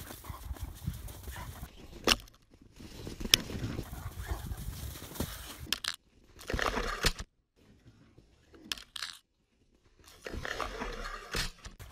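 Yellow Labrador biting and tearing at a snowman's packed snow: irregular crunching and scraping with sharp clicks of teeth and claws. In the second half the sound drops away in a few short silent gaps.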